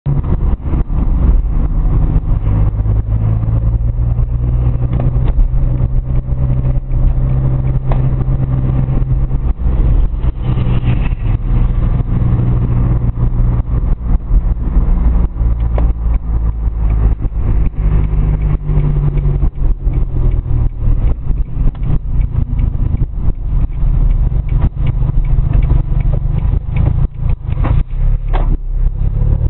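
Smart ForTwo 450 Brabus's small three-cylinder turbo petrol engine through a straight-through exhaust, heard from inside the car while driving slowly in traffic. The low drone holds steady, shifts in pitch a few times as the revs change, and starts to climb near the end.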